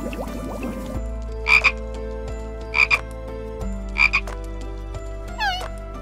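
Frog croaking: three short double croaks about a second and a quarter apart. Near the end a different animal call with a falling, wavering pitch begins.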